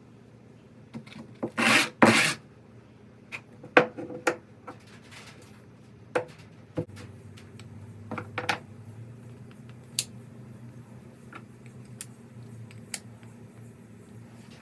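Two short, loud scraping strokes of a hand tool on wood about two seconds in, then scattered knocks and sharp clicks of tools and workpiece being handled, over a steady low hum.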